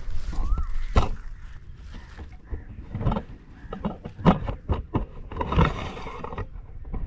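Handling noise of a camera being set in place: irregular knocks, clicks and scrapes, with a rustle about five and a half seconds in.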